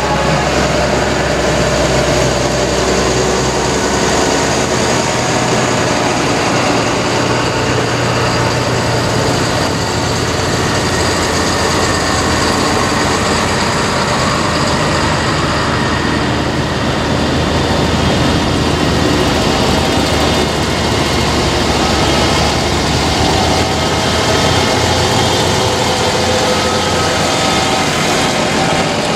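Diesel engines of a column of large modern tractors driving past one after another, a steady, continuous engine noise with the low engine tone shifting as each machine goes by.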